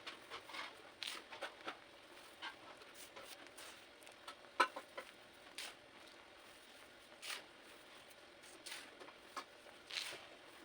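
Pink pressed-cornstarch blocks being crushed: scattered soft crunches and crumbling crackles, with one sharper snap a little before the middle.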